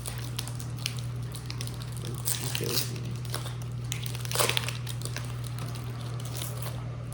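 Crinkling and rustling of a foil Pokémon booster pack wrapper being handled and opened, in short bursts, louder about two seconds in and again past the middle, over a steady low hum.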